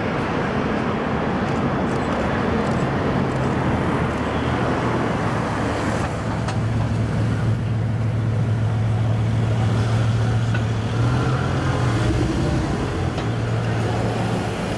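Bugatti Veyron's quad-turbo W16 engine running at low speed in street traffic: a steady low drone with traffic noise, loudest around the middle as the car passes close by.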